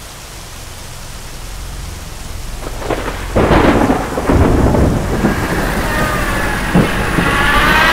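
Steady rain with thunder, the rumble building and peaking in two heavy rolls about three and a half and four and a half seconds in.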